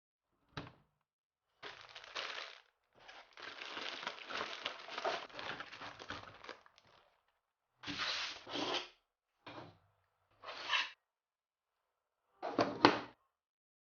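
Plastic packaging being handled: several separate bursts of crinkling and tearing with silences between. The longest lasts about four seconds, and a short, sharp burst near the end is the loudest.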